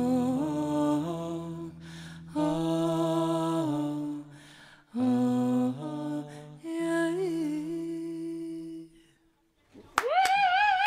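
Slow, wordless humming of a melody in long phrases, with low sustained notes underneath, breaking off into a brief silence. Then a loud held note with vibrato comes in near the end.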